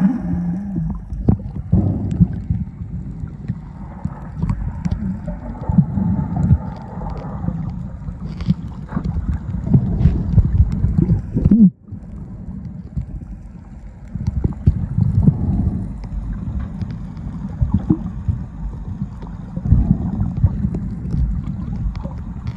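Muffled underwater rumble of water moving around a phone in a waterproof housing, with uneven surges and scattered faint clicks. It drops out for a moment about twelve seconds in.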